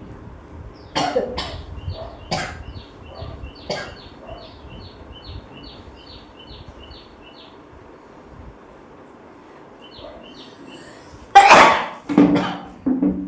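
A woman sniffing sharply a few times as coconut-husk fibre tickles her nose, then one loud sneeze about eleven seconds in, followed by two shorter bursts of breath.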